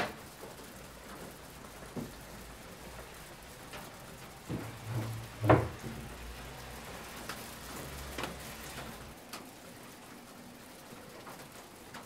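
Steady patter of spring rain. A few scattered knocks and clicks sound over it, the loudest a single thump about five and a half seconds in.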